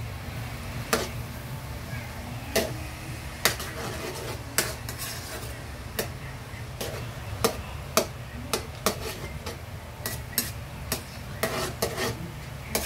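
Spatula stirring and scraping garlic around a metal wok, with irregular clinks against the pan about once a second and more often near the end, over a light sizzle of garlic sautéing in melted butter.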